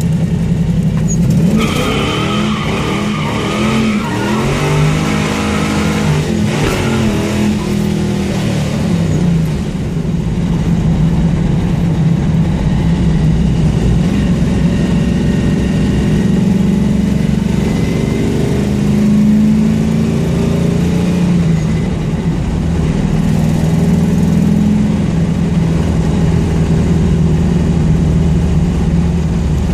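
Car engine with an exhaust leak revving, its pitch rising and falling several times in quick succession in the first few seconds, then running steadier with milder rises and falls.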